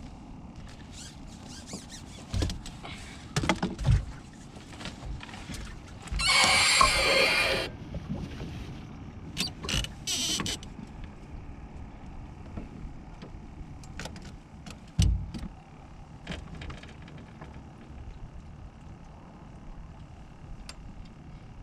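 Knocks and thumps of handling in a fishing boat over a steady low background. A loud rushing noise lasts about a second and a half, starting about six seconds in, and a shorter one follows around ten seconds in.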